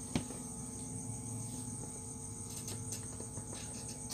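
Crickets chirping steadily in a high, even drone, with one sharp click about a quarter of a second in and a few faint clicks a little before the end.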